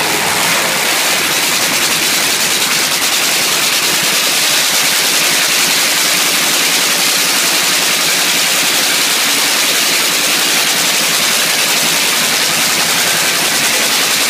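Supercharged nitromethane Hemi V8 of an NHRA Funny Car running steadily during a pit warm-up; it is so loud that it reaches the recording as a harsh, crackling hiss.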